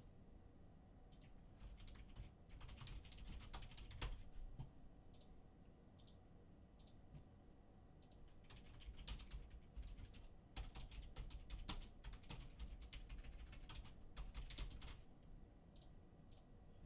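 Faint typing on a computer keyboard: two spells of quick key clicks, the first starting about a second in and the second about halfway through.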